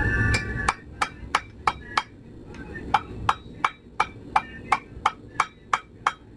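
Hand hammer striking a cast brass ingot held in tongs on a steel anvil: about three ringing blows a second, with a short pause near the middle. A low rushing noise cuts off under a second in.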